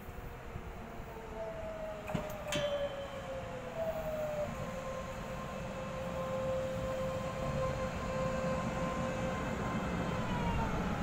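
EMU500 electric multiple unit pulling into the platform, its traction inverter and motors whining in steady tones that step in pitch and then fall near the end as the train slows. Two sharp clicks come about two seconds in, and the running noise grows louder as the train draws alongside.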